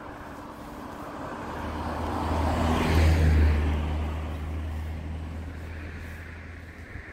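A motor vehicle passing close by: its engine hum and road noise build, peak about three seconds in, and fade away.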